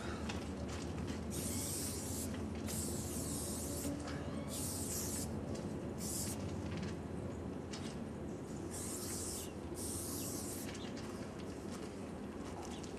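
Aerosol spray-paint can sprayed in about six short hissing bursts, most under a second long, over a steady low background rumble.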